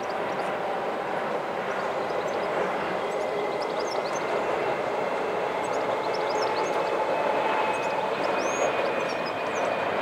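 Electric passenger train crossing a steel lattice-girder railway bridge: a steady rumble with a faint whine held through it. Birds chirp above it.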